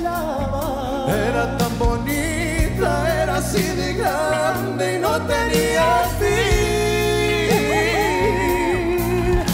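Male voices singing a Spanish-language ballad in a flamenco-tinged style over band accompaniment, with wavering vibrato, quick melodic runs and a long held note near the end.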